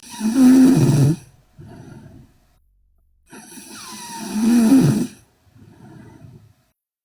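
A sleeping young woman snoring loudly: two loud snores on the in-breath, about three and a half seconds apart, each followed by a quieter breath out.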